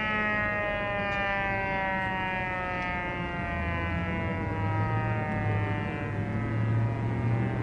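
Federal Enterprises Thunderbolt 1000 outdoor warning siren winding down at the end of its test, its tone sliding slowly lower in pitch. A low hum comes in about halfway through.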